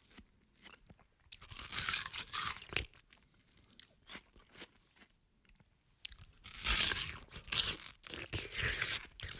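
Crisp watermelon flesh crunching in two spells of several seconds each, with sharp crackles.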